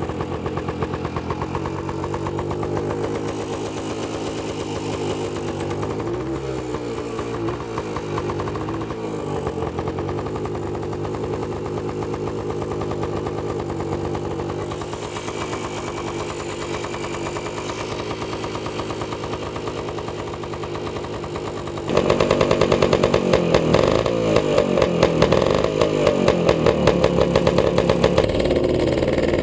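1952 Hoffmann MR175 motorcycle's two-stroke engine running just after a kick start, idling and wavering in speed. About 22 seconds in it turns suddenly louder and harder-edged, as if given more throttle, and holds there.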